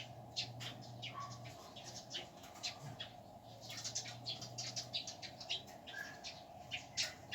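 Faint birds chirping in short, irregular calls over a steady low electrical hum.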